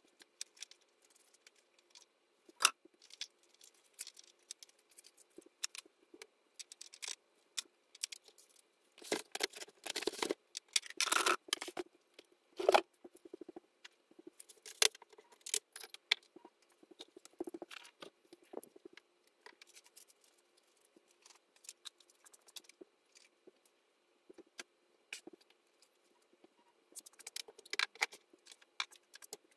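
Scattered clicks, rattles and rustles of small objects being handled and set down while a sewing room is tidied, busiest about ten to thirteen seconds in and again near the end.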